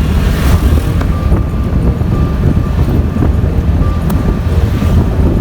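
A vehicle travelling along a road, with a steady heavy rumble of wind and road noise on the microphone.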